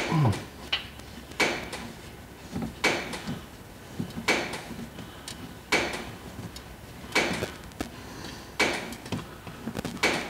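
Sharp, evenly spaced clicks, about one every second and a half.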